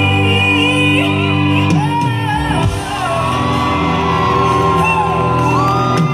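Live pop music from a band, with a voice singing long, high held notes over a steady backing that starts about two seconds in.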